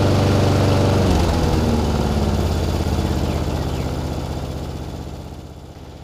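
Single-cylinder four-stroke Briggs & Stratton Quantum engine of a Brill Hattrick mower running steadily just after being pull-started, then growing gradually quieter from about two seconds in.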